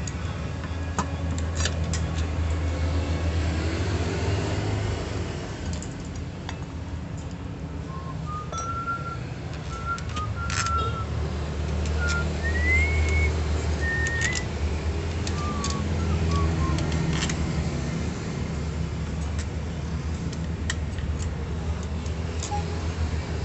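Scattered metal clinks and taps of a steel socket wrench and bolts against a scooter's CVT cover as the bolts are refitted, over a steady low rumble. A few short high tones, one of them rising, sound in the middle.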